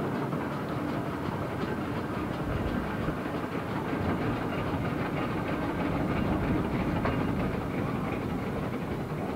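Steam crane working: a steady mix of mechanical clatter and steam hiss from its engine.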